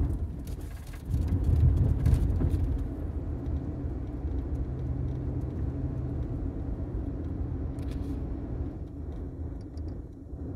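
A steady low rumble with a faint hum, with rubbing and handling noises in the first few seconds and once more near the end.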